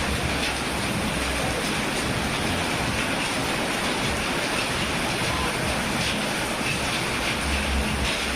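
Steady rain falling on roofs, an even hiss with scattered drips, and a low rumble coming and going underneath.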